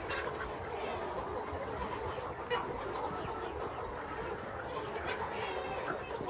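A flock of chickens clucking steadily, many overlapping calls.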